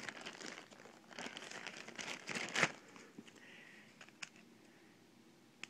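Packaging rustling and crinkling as items are handled and put back in, loudest in the first two and a half seconds, then two light clicks.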